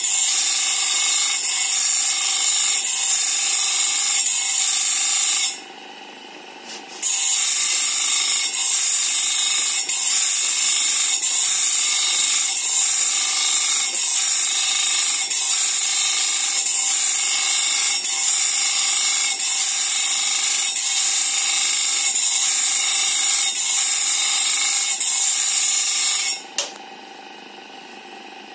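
Electric bench grinder sharpening a sawmill band-saw blade: the wheel grinds the steel teeth in a steady high-pitched rasp, with a regular pulse as tooth after tooth meets the wheel. The grinding stops for about a second and a half some five seconds in, and again for the last two seconds.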